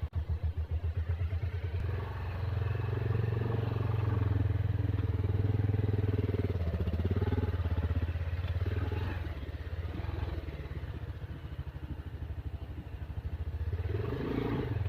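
Bajaj Pulsar 220F's single-cylinder engine running as the motorcycle is ridden: slow, distinct firing pulses at first, the engine picking up about two seconds in and running steadily, easing off around ten seconds in, then picking up again near the end.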